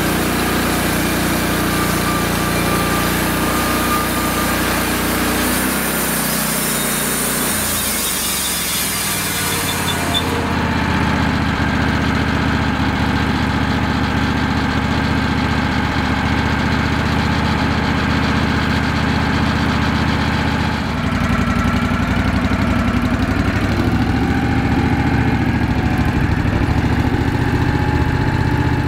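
Wood-Mizer LX150 band sawmill running steadily as its band blade cuts through a cherry log, with a hiss over the engine. About ten seconds in the hiss drops away and the engine keeps running.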